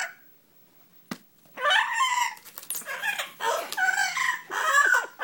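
Double yellow-headed Amazon parrot calling in a rapid run of harsh, pitched squawks that starts about a second and a half in, after a single sharp click.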